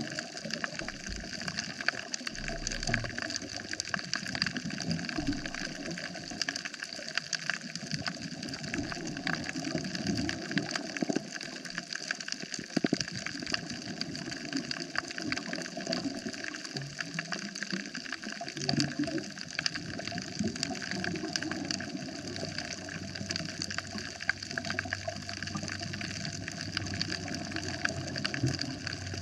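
Underwater sound on a coral reef: a dense, steady crackle of tiny clicks over a rushing water noise, with low gurgling rumbles that come and go.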